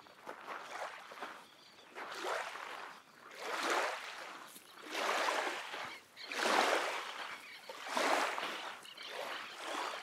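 Small lake waves washing up onto a sandy shore, a swell of splashing water noise rising and fading about every one and a half seconds.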